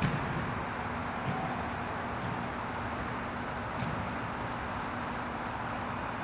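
Steady background rumble of distant traffic with a faint constant hum, unchanging throughout.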